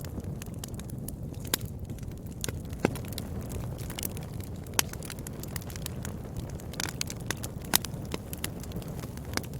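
Wood fire crackling: irregular sharp pops and snaps over a low steady rumble of the burning fire, with a handful of louder pops scattered through.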